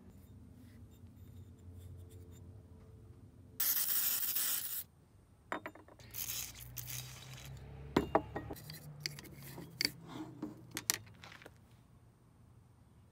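Aerosol carburetor cleaner spraying in a loud hiss of about a second, followed by a shorter, softer spray. Then come scraping and rubbing with a few sharp clicks as the metal carburetor parts and the can are handled.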